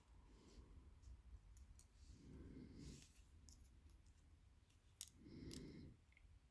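Very faint, scattered small metallic clicks of a pick hooking pin springs out of a lock's pin chambers, the clearest about five seconds in.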